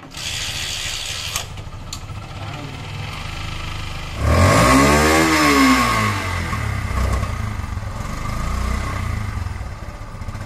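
Yamaha FZ 150 cc single-cylinder engine starting from cold after standing unused for a long time, then idling. About four seconds in it is revved once, rising and falling in pitch, the loudest moment, before it settles back to a steady idle.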